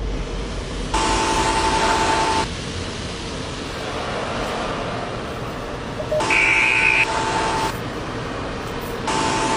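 A car horn sounding three long honks of about a second and a half each: one about a second in, one about six seconds in, and one near the end. Between them there is a steady low rumble.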